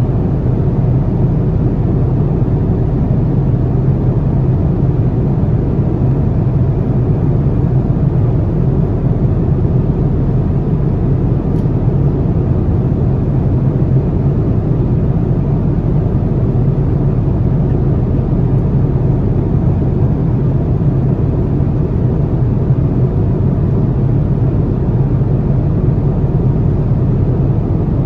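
Steady low drone of an Airbus A330-900neo's cabin in cruise: engine and airflow noise heard from an economy seat, even and unchanging throughout.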